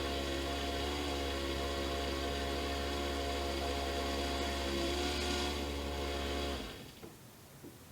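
Dishwasher running, its pump motor humming steadily under the wash-water spray, then cutting off suddenly about six and a half seconds in, leaving only a few faint ticks.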